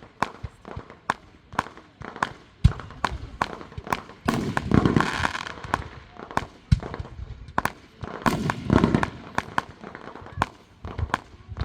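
Fireworks going off in quick succession: a steady string of sharp bangs and pops, with longer, heavier bursts about four and eight seconds in.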